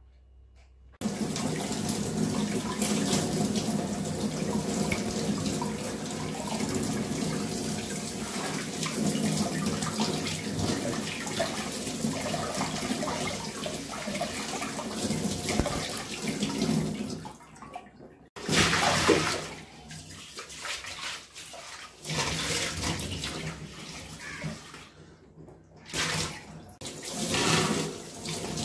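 Kitchen tap running into a steel sink as pineapples and then a wooden chopping board are rinsed under it by hand, water splashing off them. The flow starts about a second in, breaks off briefly past the middle, and then comes in uneven surges as the board is held under the stream.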